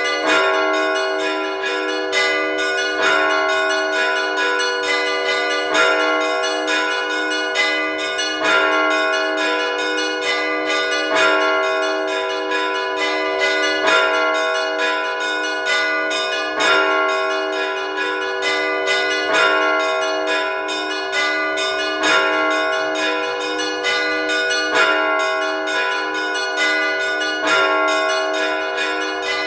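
Russian Orthodox church bells ringing a simple peal in the weekday Rostov style. A heavier stroke comes about every three seconds over quicker strokes of the smaller bells, and the bell tones ring on between strikes.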